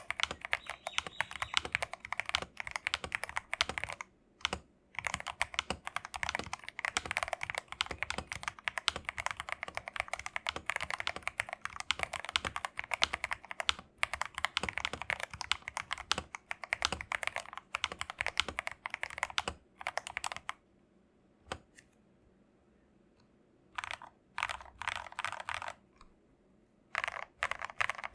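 Typing on an MK870 mechanical keyboard with Akko Jelly Black linear switches and GMK keycaps: a fast, continuous run of keystrokes that stops about two-thirds of the way through, followed by pauses and a few short bursts of keystrokes.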